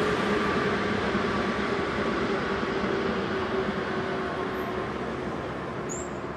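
Freight train of Wam 80000 two-axle boxcars running slowly past. Its steady running noise carries a hum through it and fades gradually as the train moves away.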